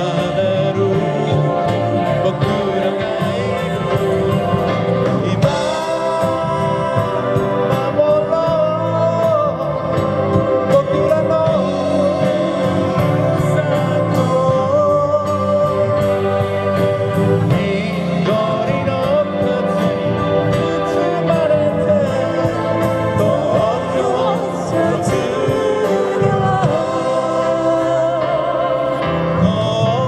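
A live band plays a song on electric guitars, keyboard and drums, with a man singing the lead vocal over it.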